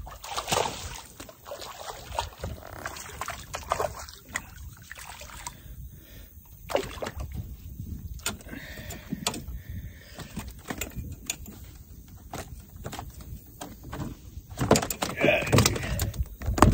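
Handling noises in a canoe: scattered knocks and clicks of fishing rods and gear against the hull, over light water sloshing, growing louder near the end.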